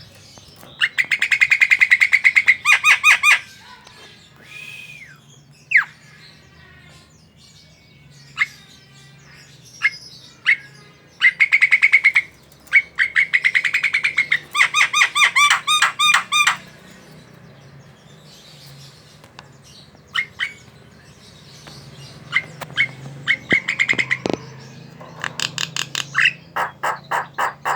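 Javan myna chattering: bursts of fast, rattling repeated notes lasting a second to three seconds, broken up by single sharp whistles.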